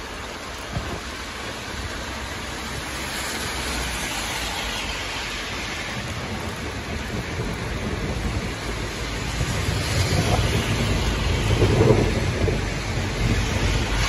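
Heavy rain falling steadily on a wet street, with gusting wind that builds up. A deep rumble swells and is loudest near the end.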